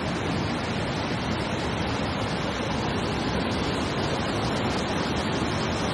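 Steady rushing noise of fast-flowing floodwater, an even wash of sound with no separate splashes or knocks.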